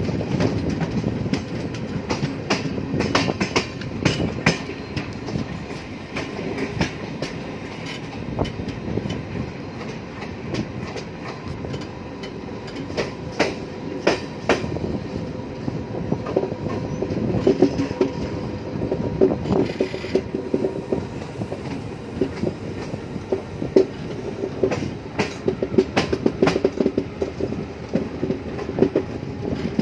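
Passenger train coaches running along the track, heard from an open coach door: a steady rumble broken by irregular sharp clacks of the wheels over rail joints.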